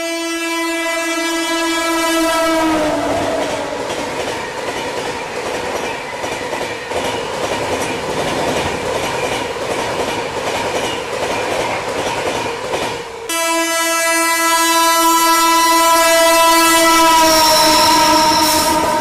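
Indian Railways express train passing at about 130 km/h. The horn sounds and drops in pitch as the locomotive goes by, then the coaches rush past with a clickety-clack of wheels over rail joints. About two thirds of the way in, an abrupt cut brings a second express's long horn, its pitch sliding slightly lower near the end as it approaches and passes.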